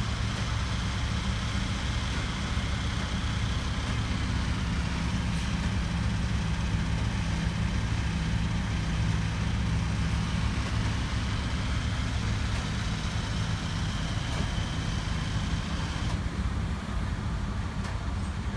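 A vehicle engine idling steadily: a low, even drone.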